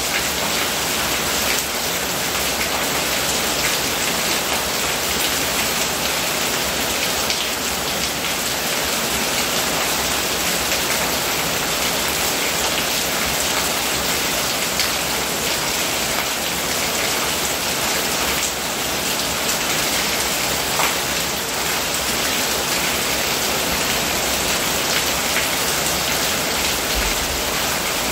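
Steady rain falling on roof and hard ground, with runoff pouring off the roof edge in a stream and splashing below.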